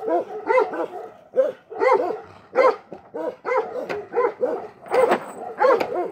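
Central Asian Shepherd (Alabai) dogs barking over and over, about two to three barks a second, at a stranger who has been teasing them.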